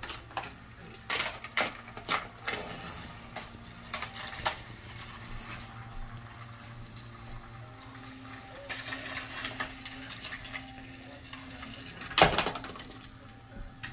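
Plastic toy trains and track pieces of a Thomas & Friends walking-bridge set clacking and knocking as they are handled, with several quick clacks in the first few seconds and the loudest knock about twelve seconds in. A low steady hum runs underneath.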